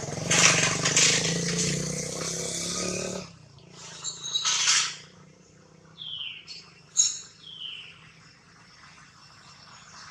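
A motor vehicle's engine runs loudly for about the first three seconds, then stops or fades away. A few short, high calls that fall in pitch follow near the middle.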